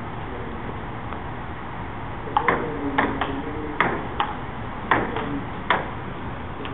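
Table tennis rally: the ball clicking sharply off the paddles and the table, about nine clicks at an uneven rate of two or three a second. The clicks start a couple of seconds in and stop about a second before the end.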